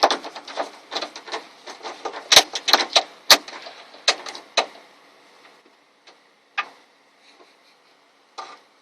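Quick, irregular metallic clicking and clattering of a tool tightening a Torx screw inside a car door, stopping about four and a half seconds in, followed by a few scattered faint clicks.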